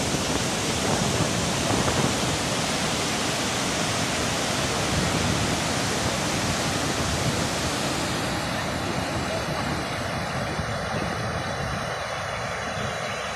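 Steady rushing of Barachukki Falls swollen by flood water, a dense, even roar of falling water that eases slightly in the second half.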